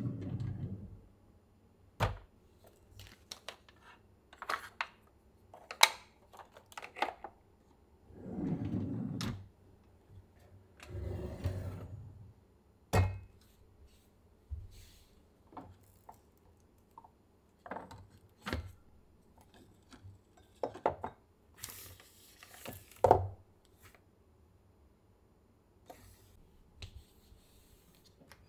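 Kitchen cabinet drawers sliding open and shut on their runners, with many scattered clicks, knocks and clatters of things inside being handled. Two longer sliding rumbles come about eight and eleven seconds in, and the sharpest knocks come around six and twenty-three seconds in.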